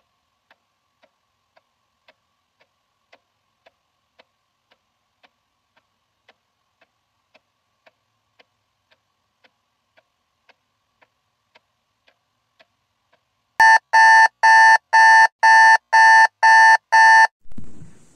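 Faint clock ticking, about two ticks a second, then a digital alarm clock goes off with a run of about eight loud, rapid electronic beeps that stop suddenly. A short low muffled noise follows near the end.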